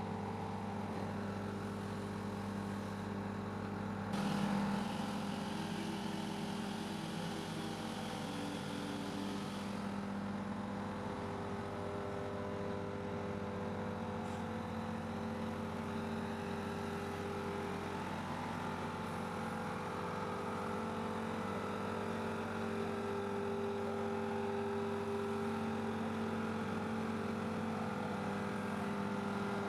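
Steady engine hum from heavy machinery, with a brief rise in level and some added hiss about four seconds in.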